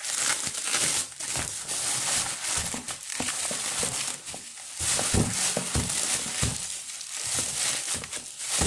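Plastic bubble wrap crinkling and rustling as it is handled and pulled apart by hand, with many small crackles; it eases off briefly about four seconds in.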